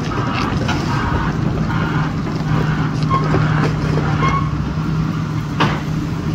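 Komatsu PC360LC excavator's diesel engine running steadily during demolition, with clattering and scraping of debris, two short high squeals, and a sharp bang about five and a half seconds in.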